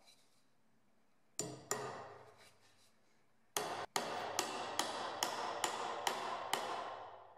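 Claw hammer striking a nail into a pine block: two blows about a second and a half in, then a steady run of about ten blows, some two to three a second, each ringing briefly.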